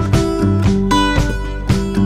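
Background music led by strummed acoustic guitar with a steady rhythm.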